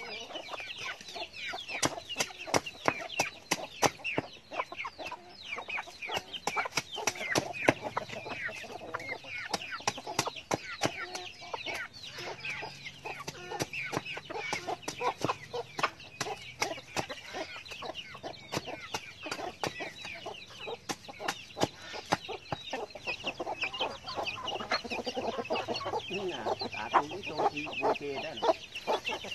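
Chickens clucking and chicks peeping over repeated sharp knocks of a hatchet chopping into hard earth to break open a termite nest. The knocks come several a second and thin out towards the end, when the clucking grows louder.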